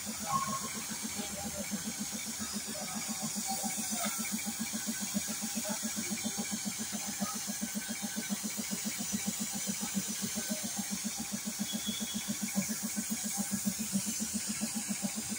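Piston air compressor running with a rapid, steady chugging, under the steady high hiss of compressed air from a gravity-feed spray gun spraying car paint.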